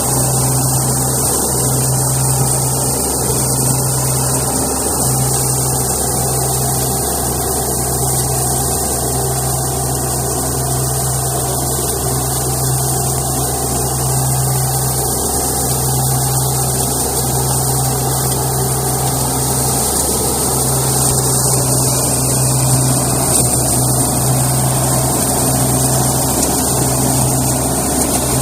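Onion stalk cutter (multipurpose weeder) running steadily in the field: a constant low machine hum under a broad, hissing whir from the cutting work.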